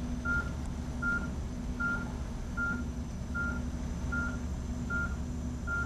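Medical equipment beeping steadily, one short high beep about every 0.8 seconds, over a low electrical hum.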